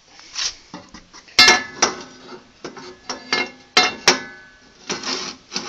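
Steel parts knocking together: a run of sharp metallic clanks and clinks, each ringing briefly, with scraping and handling noise between them, as parts are fitted against a minibike frame.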